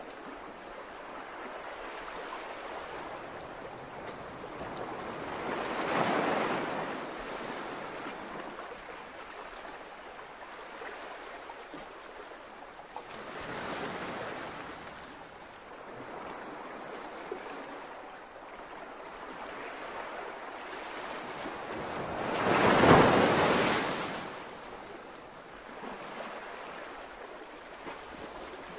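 Sea waves washing in: a rushing hiss that swells and fades about every eight seconds, the loudest swell a little past twenty seconds in.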